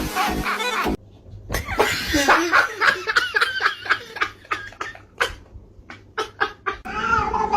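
A person laughing in a run of short bursts for several seconds. Near the end a long, drawn-out cat yowl begins.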